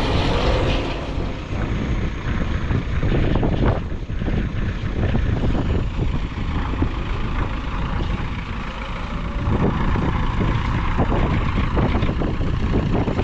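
An engine running steadily with a rough, noisy low-pitched sound.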